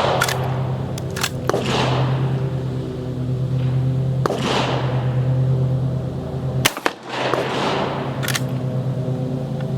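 Gunfire on a shooting range: several sharp shots, each trailed by a short echo, the sharpest about seven seconds in, over a steady low hum.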